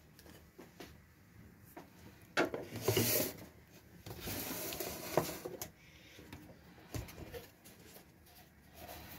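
Handling noise: short bursts of rustling and scraping with a few light knocks, about two and a half seconds in and again around four to five seconds, over quiet room tone.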